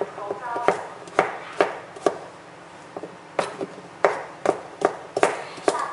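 Kitchen knife chopping raw pumpkin into bite-size chunks on a plastic cutting board: about a dozen sharp chops at an uneven pace, with a pause of about a second partway through.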